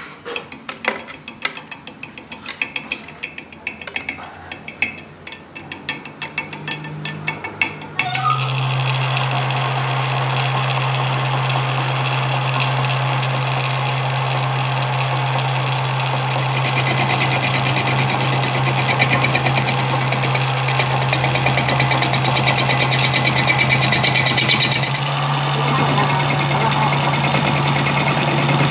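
Pointed steel hand tool tapping and scraping at a fresh weld bead on a splined shaft, a quick run of sharp clicks. About eight seconds in, a metal lathe starts suddenly with a steady hum and turns the welded shaft end, the cutting tool scraping along the weld; the cutting is loudest in the middle stretch.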